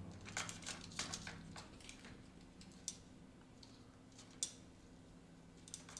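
A few faint clicks and taps, several in the first two seconds and single ones about three and four and a half seconds in, over a steady low hum.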